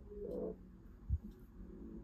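Faint AM broadcast audio from a Collins 75A-4 receiver's speaker, dropping in level about half a second in, with a short low thump just past a second in.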